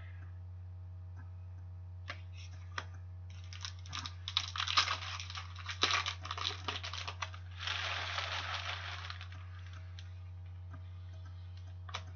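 Hockey trading cards being handled and sorted by hand: light taps and flicks of card stock, a quick run of clicks and riffling about a third of the way in, then a short sliding rustle. A steady low hum lies underneath.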